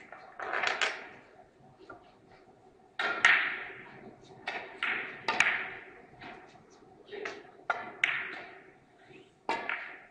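Carom billiard balls clacking against one another and the cue striking the ball: a string of sharp clacks, each with a short ring in the hall.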